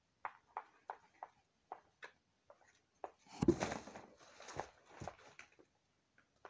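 White plastic spoon tapping and scraping in a plastic crayon-box tray while stirring shaving cream into glue slime, in soft separate ticks. About three and a half seconds in there is a louder rustling handling noise with a low bump.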